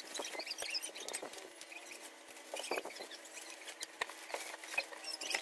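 Plastic and bubble-wrap packaging crinkling and rustling as it is handled and pulled open, in small scattered crackles with a few sharper clicks, over a faint steady hum.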